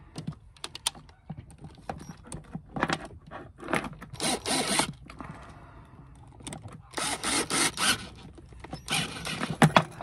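Cordless drill driving the clamp screws into a battery cable terminal end, cranking them down tight for a good connection. It runs in three short bursts of about a second each, with clicks and rattles from handling the parts before and between them.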